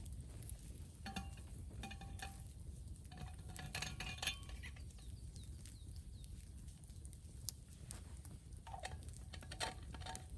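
Metal utensils clinking against cookware, in a few short clusters of ringing clinks with quiet gaps between them.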